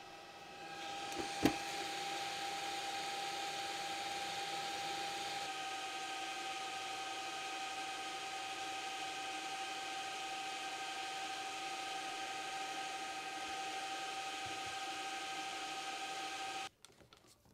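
Skil dual-port battery charger's cooling fan running with a steady whine, stopping abruptly near the end. A sharp click about a second and a half in.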